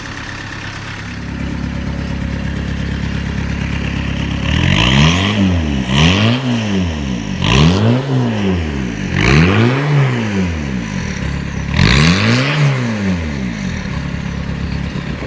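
Peugeot 306 D Turbo's four-cylinder turbodiesel idling, then revved five times, each rev climbing and dropping back, before settling to idle again. The freshly rebuilt engine, with new timing belt and water pump, is running as it should.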